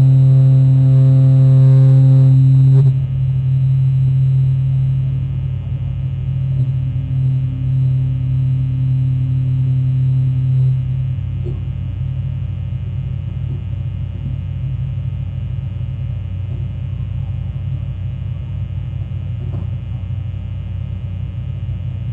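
Fog horn sounding a loud, low, steady tone that cuts off about three seconds in. A weaker low tone carries on until about eleven seconds in, then a steady low rumble remains.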